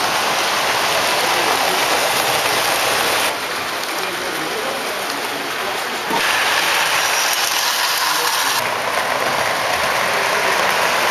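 Lionel O-gauge model trains running on the layout's track: a steady, even rattling noise of wheels on rail, dropping suddenly about three seconds in and coming back up about six seconds in.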